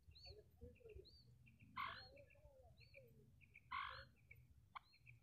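Female common quail calling: two louder short calls about two seconds apart, over faint high chirps repeating about every half second.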